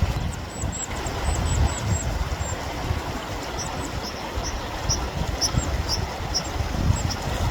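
Mountain torrent rushing steadily with a deep rumble, while white-throated dippers give a quick run of short, high peeping calls in the middle.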